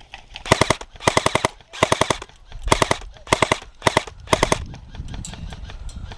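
Airsoft rifle firing about seven short full-auto bursts of rapid, evenly spaced shots in a few seconds.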